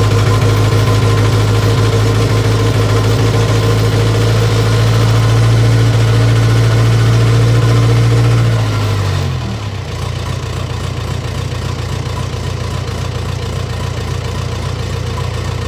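Old Komatsu bulldozer's diesel engine running steadily, then about nine seconds in its pitch falls and it drops to a quieter, lower idle. The engine is running again after air was bled from its injection lines.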